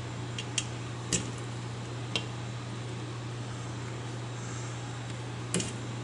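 Hand wire stripper clicking as it bites and pulls insulation off refrigerator start-kit wires: about five short sharp clicks, spread out, the last near the end. A steady low hum runs underneath.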